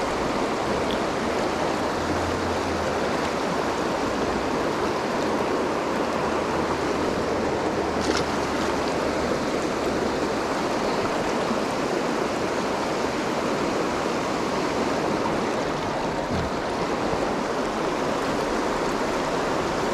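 River water rushing steadily over boulders and shallow riffles, a constant even rush with no break.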